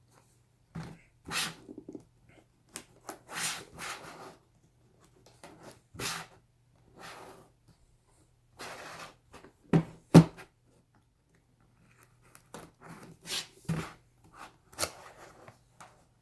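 Handling and opening the cardboard retail box of a charger: irregular scrapes and rustles, a few clicks, and two sharp knocks about ten seconds in, over a faint steady hum.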